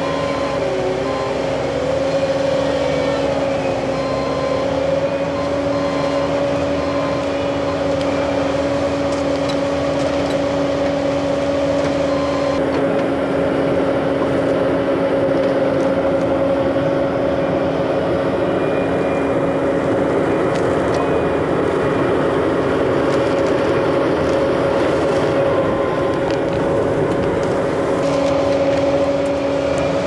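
Bobcat T770 compact track loader's diesel engine running steadily under load, with a constant whine held at one pitch.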